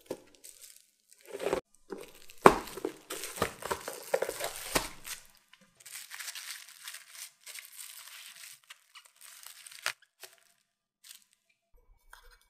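Plastic sheets and a plastic container crinkling and rustling in irregular bursts as potato croquette logs are lifted out by hand. The handling stops after about ten seconds, leaving only a few faint clicks.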